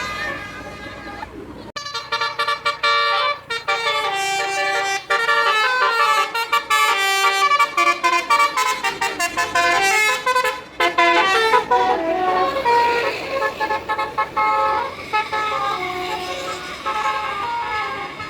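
Multi-tone 'telolet' bus horn playing a quick tune of stepping notes that starts about two seconds in, then changes to longer held notes in the second half.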